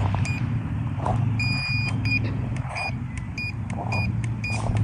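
Short electronic beeps repeating several times a second at uneven intervals, all on the same high pitch, over a steady low hum.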